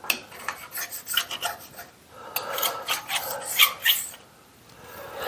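Hand deburring of the edge of a freshly milled part: short, irregular scraping strokes of a deburring tool or file against the workpiece, stopping about four seconds in.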